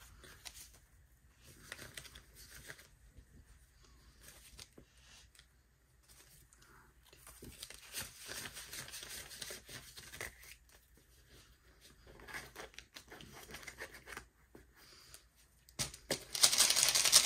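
Paper banknotes rustling and crinkling as they are crammed into an overfull money jar, in scattered bursts that are loudest near the end.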